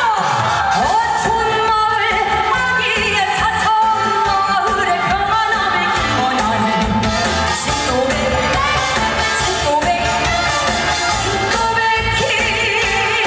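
Female trot singer singing live into a microphone over loud amplified trot accompaniment with a steady beat, with a wavering vibrato on held notes about three seconds in and again near the end.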